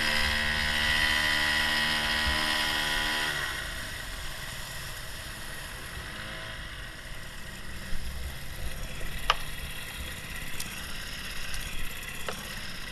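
Small 5-horsepower outboard motor running steadily, heard from on board the boat, then dropping off sharply about three and a half seconds in. What remains is a quieter hiss with a few light knocks.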